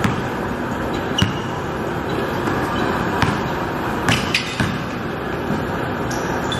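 Basketball bouncing on a hard indoor gym floor during a game: a few sharp, separate bounces, clustered about four seconds in, over a steady background rush.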